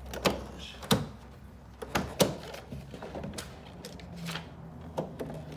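A few sharp clicks and knocks of hands working the trike's fibreglass trunk lid and spoiler, spaced irregularly, over a faint steady hum.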